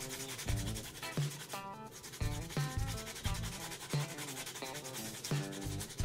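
Sandpaper rubbing over a varnished, glitter-coated fishing lure in rapid back-and-forth strokes, sanding the hardened varnish coat smooth before more layers go on. Background music with bass notes and plucked tones plays underneath.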